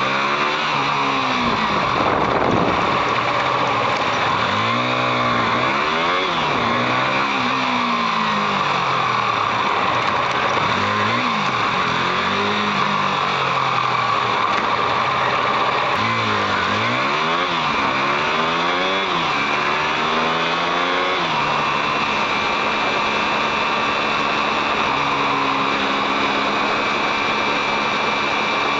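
Motorcycle engine heard from on board, rising and falling in pitch again and again as it speeds up and slows in city traffic, then holding a steadier note for the last few seconds, over a constant rushing noise.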